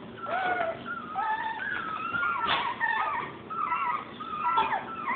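Young puppies whining and crying: many short high-pitched calls that rise and fall in pitch, often overlapping.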